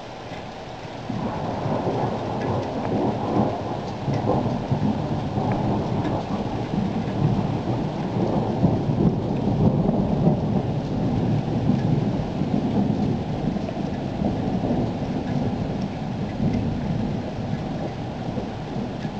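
Thunder: a long rumble breaks in suddenly about a second in and rolls on, swelling and then slowly easing, over steady rain.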